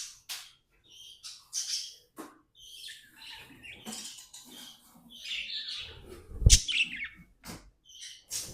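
Budgerigars chirping and chattering in short, irregular calls. A single sharp knock about six and a half seconds in is the loudest sound.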